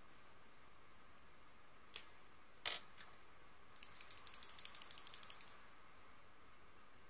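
Makeup items being rummaged through: a light click and a sharper knock, then a quick run of small rattling clicks for about a second and a half, while a liquid eyeliner pen is picked out.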